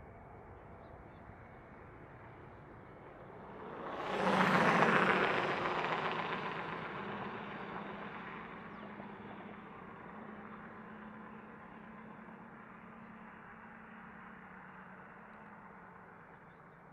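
Airbus A320 jet's CFM56 turbofan engines at takeoff power passing by: the noise swells quickly about four seconds in, then fades slowly as the aircraft climbs away, leaving a low engine hum.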